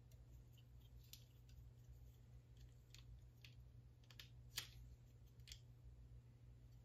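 Faint, scattered clicks of plastic LEGO mech pieces being handled and fitted together. The loudest comes about two-thirds of the way in, over near silence.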